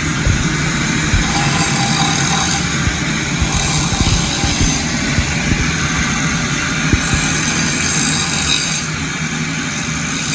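Angle grinder grinding the edge of a steel plate, tapering it to a bevel so it isn't sharp. A steady, loud whine and grinding noise.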